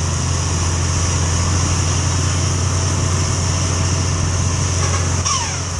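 Steady engine drone and wind rush from a moving motorcycle following a Scania 380 double-decker bus uphill. About five seconds in there is one short falling whistle, which is heard as a "fiu".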